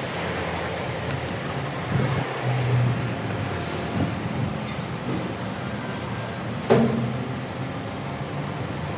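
A vehicle engine runs steadily amid street noise, with one sharp knock about seven seconds in.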